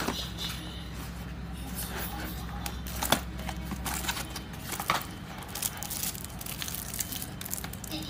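Cardboard packaging being handled on a tabletop: scattered taps, clicks and light crinkling as the box is touched and picked up, with sharper taps about three and five seconds in.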